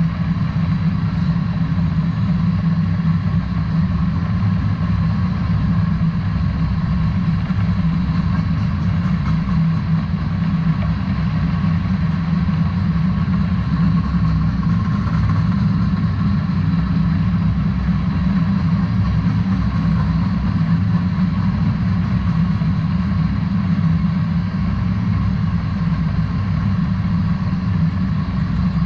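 Freight train of covered hopper cars rolling past close by, a steady low rumble of steel wheels on rail that holds even throughout.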